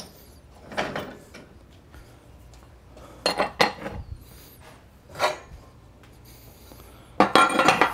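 Metal parts of a Shopsmith Mark V being handled and set down: several separate clanks, then a longer rattling clatter near the end.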